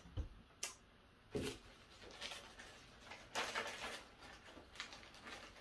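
Faint rustling and light taps of small craft supplies being handled on a tabletop, with a few short clicks near the start and a brief louder rustle a little past halfway.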